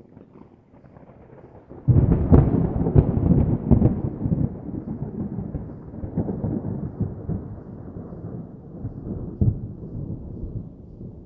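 A thunderclap: faint rumbling, then a sudden loud crack about two seconds in, followed by a long rolling rumble with crackles that slowly dies away.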